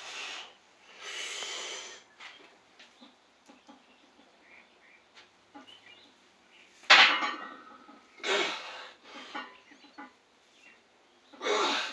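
A bench presser breathing hard and grunting through heavy reps: sharp exhales and strained grunts, the loudest a sudden burst about two-thirds of the way through, with two more bursts after it.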